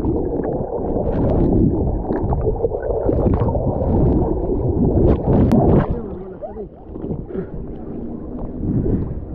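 Sea water heard with the microphone submerged: a dull, muffled rumble and gurgle with splashes and bubbling. About six seconds in the microphone comes up out of the water and the sound drops to lighter splashing of small waves.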